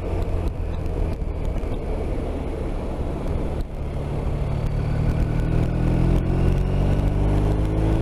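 BMW R 1250 RT's boxer twin engine running under way with wind rush, its pitch climbing steadily through the second half as the bike accelerates.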